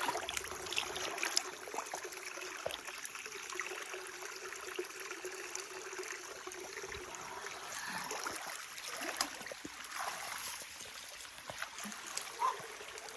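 Running stream water, a steady trickling and gurgling flow with a few faint clicks.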